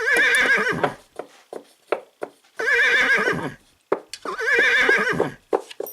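A horse whinnying three times, each a quavering neigh about a second long, with short hoof clip-clops in between.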